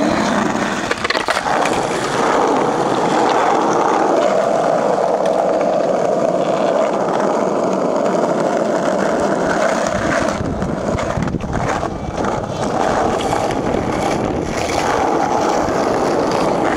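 Skateboard wheels rolling steadily over rough asphalt, a continuous grinding rumble, with a few sharp knocks of the board about two-thirds of the way through.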